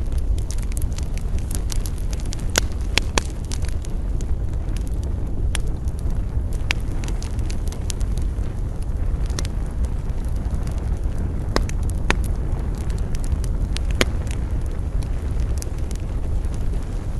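Campfire crackling, with sharp pops scattered irregularly through it over a steady low rumble of wind.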